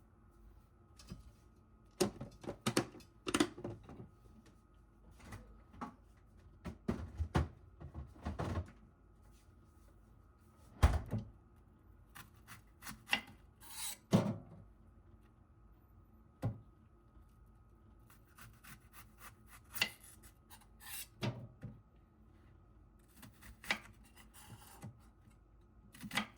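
Intermittent handling sounds: short knocks, clicks and brief rubbing or scraping, with a faint steady hum underneath.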